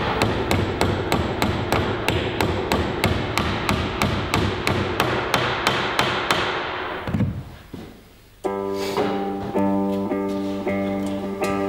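Rapid, even hammer taps, about four a second, on a small tool held against an old wooden boat plank, running over background guitar music. The taps die away after about seven seconds and the guitar music carries on alone.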